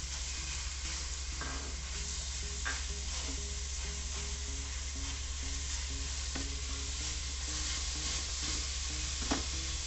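Grated bottle gourd sizzling in hot ghee in an aluminium pot while a silicone spatula stirs and spreads it. A steady frying hiss runs throughout, with a few soft taps and scrapes of the spatula against the pot.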